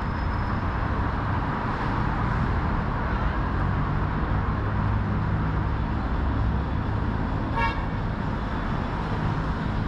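Busy street ambience with a steady low traffic rumble, cut by one short horn beep near the end.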